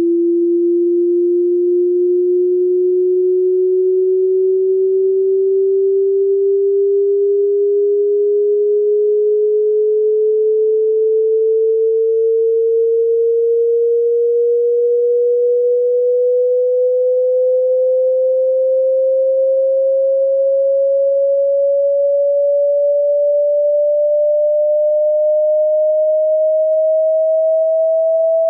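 A pure sine-wave test tone from a hearing-test frequency sweep, rising slowly and evenly in pitch by about an octave at a steady loudness.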